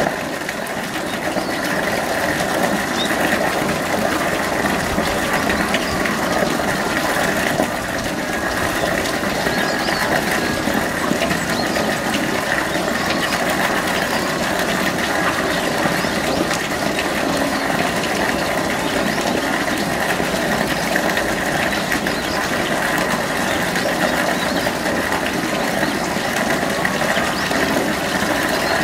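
Steady, unbroken mechanical drone.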